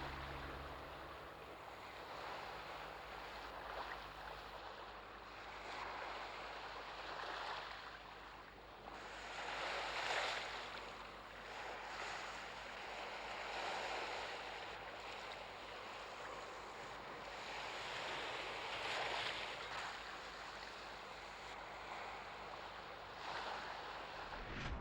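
Sea waves washing onto a beach, a steady rush that swells every few seconds as each wave breaks.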